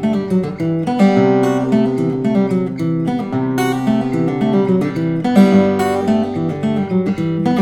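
Solo acoustic guitar playing: picked and strummed chords over a moving bass line, with sharp chord strikes a few times.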